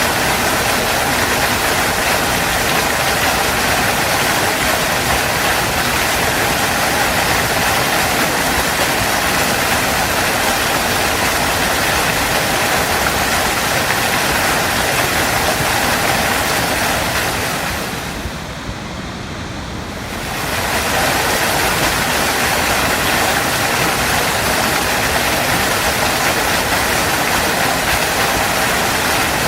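Steady rushing roar of a waterfall. About two-thirds of the way through, the higher hiss fades out for a couple of seconds, the sound thinning and dropping in level, then it swells back to full.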